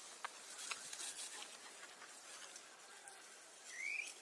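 Dry leaf litter crackling and rustling as a newborn macaque moves through it, with a short rising squeak near the end.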